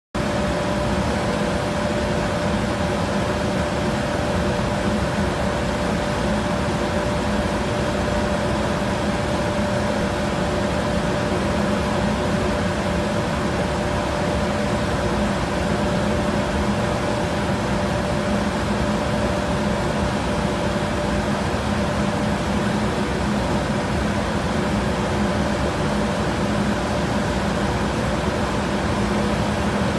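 Steady machinery hum with a few held tones, unchanging throughout.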